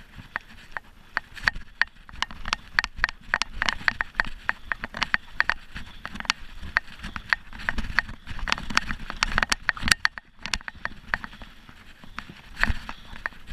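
Mountain bike ridden slowly and pedalled hard over a rough dirt singletrack, clattering with a dense, irregular run of sharp clicks and knocks as it goes over the bumpy trail. There is a brief lull about ten seconds in.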